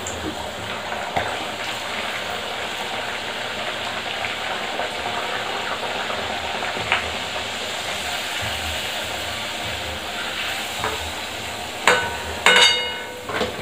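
Puri deep-frying in hot oil in a steel kadai: a steady sizzle. Near the end a metal slotted spoon knocks against the pan a few times with a sharp ringing clang as a fried puri is lifted out.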